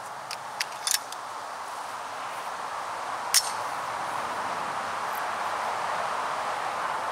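Light metallic clicks from a Browning Buckmark Carbine .22 rifle being handled and readied to shoot: a few small clicks in the first second, then one sharp click about three and a half seconds in. A steady outdoor hiss underneath grows slightly louder.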